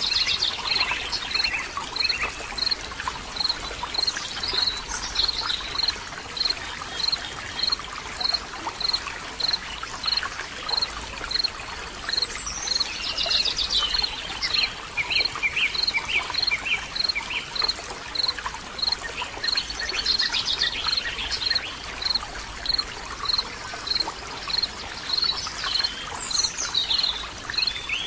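Nature ambience: steady running water with birds singing in several short bursts, over an even chirp that repeats about twice a second.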